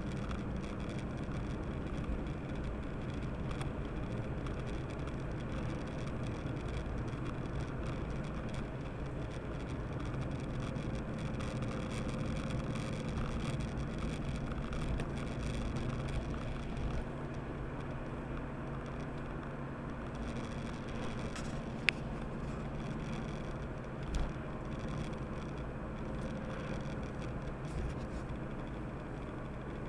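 Inside a car cabin: steady engine hum and tyre noise on a wet road while driving, picked up by a dashcam microphone. The engine note eases a little about halfway through. A sharp click comes about two-thirds of the way in, followed shortly by a soft knock.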